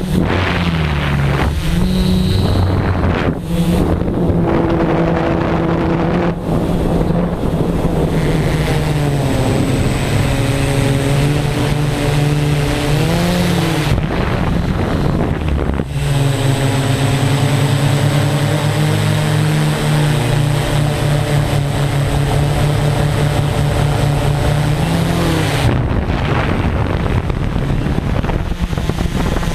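Electric motors and propellers of an RC multirotor drone humming with a steady, several-toned pitch that steps and glides up and down as the motor speeds change in flight.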